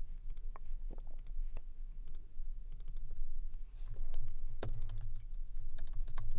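Typing on a computer keyboard: irregular runs of key clicks with short pauses, over a low steady hum.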